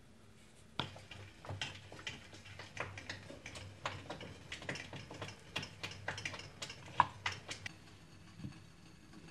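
Rapid, irregular light taps and clicks of coconut-coated cookies being rolled in desiccated coconut on a ceramic plate and set down on a ribbed glass serving plate. The taps start about a second in and stop about a second and a half before the end, with one sharper clack near the end.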